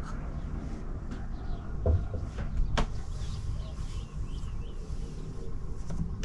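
Sailboat's inboard engine running steadily at low revs, with a few knocks on deck and a sharp click in the middle. Small birds chirp several times partway through.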